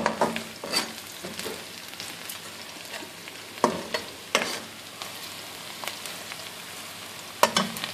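Sliced onions and garlic sizzling in hot oil in a metal wok while being stirred with a metal slotted spoon. The spoon clinks and scrapes sharply against the pan several times over the steady sizzle.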